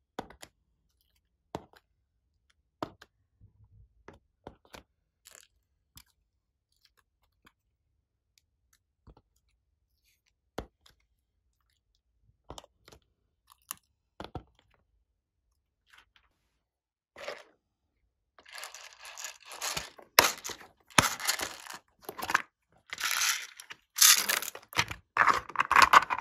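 Scattered light clicks and taps as soft clay hearts are set down among beads and glitter in a plastic tray. In the last several seconds a run of louder crackling, crunching noises takes over, as if plastic and beads are being handled.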